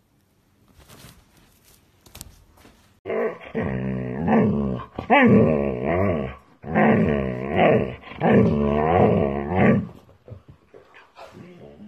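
Husky vocalizing in long, wavering howl-like grumbles, about four in a row, starting about three seconds in after a quiet start.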